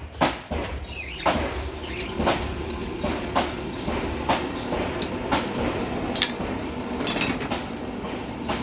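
Hammer blows on metal, two quick ones at the start, then a steady run of about one a second over a continuous low machine hum.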